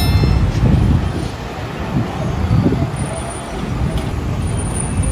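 Busy street traffic: a steady low rumble of engines and tyres from passing cars, motorcycles and trucks.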